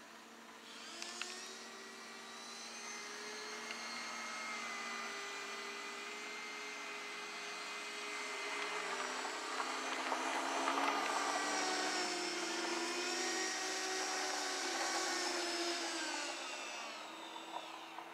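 Radio-control Flyzone Acro-Wot aerobatic model plane in flight: its motor and propeller make a steady drone of several tones that glide up and down in pitch as it manoeuvres. It grows louder toward the middle and fades near the end.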